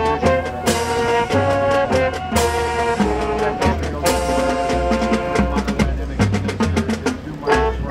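High school marching band playing its field show: full brass section over marching percussion, with a stepping bass line and steady drum hits. Two crashes ring out, one just under a second in and another about two and a half seconds in.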